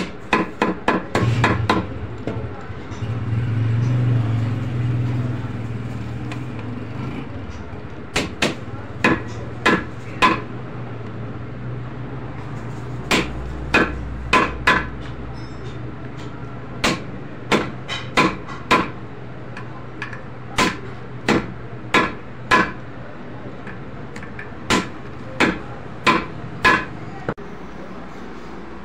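Hammer striking rivets into new brake lining on a Fiat 480 tractor's steel brake band, held on a post anvil: sharp metal strikes, a fast run of blows at the start, then short groups of a few blows with pauses of a second or two between. A low hum swells in the first few seconds and fades out.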